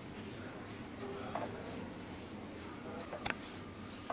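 Spatula stirring dry desiccated coconut in a kadai while it dry-roasts over low heat: soft, continuous scraping and rustling, with a light tap about three seconds in.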